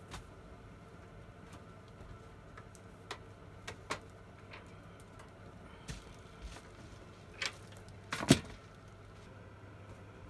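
Scattered light knocks and clicks of things being handled, with a louder thump about eight seconds in, over a low steady hum.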